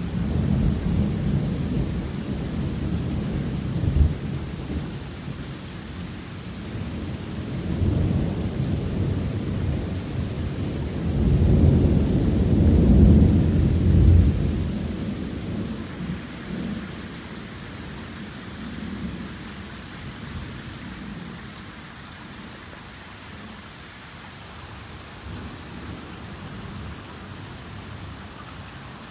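Torrential rain with rolling thunder: long low rumbles, the loudest about a third of the way in, dying away into the steady hiss of the downpour.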